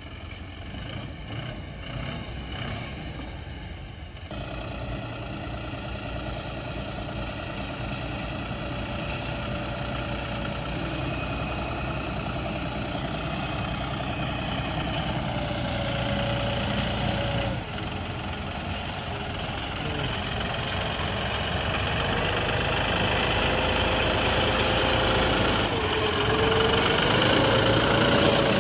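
John Deere 5405 tractor's three-cylinder PowerTech diesel running steadily while pulling a cultivator through wet soil, getting steadily louder as it comes close.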